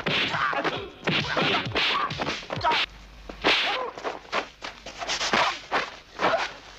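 Martial-arts film fight sound effects: rapid whooshes of punches and kicks and sharp slapping hits, one after another, with short shouts and grunts from the fighters. There is a brief lull about three seconds in.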